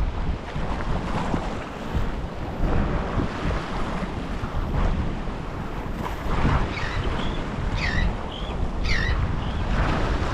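Wind buffeting the microphone over the wash of surf against the jetty rocks, in an uneven, gusting rumble.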